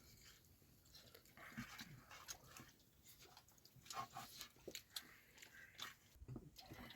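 Near silence, with faint scattered ticks and soft breathy sounds.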